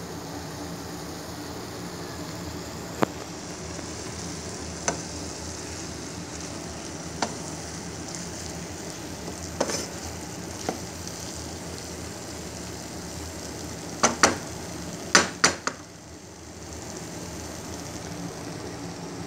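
Wooden spatula stirring food in nonstick frying pans, knocking sharply against the pan every couple of seconds and in a quick run of knocks about three-quarters of the way through, over a steady sizzle of frying.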